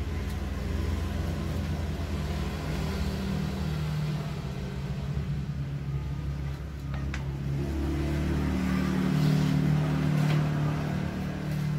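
An engine running steadily with a low hum, its pitch rising a little about eight seconds in, with a few faint clicks of handling.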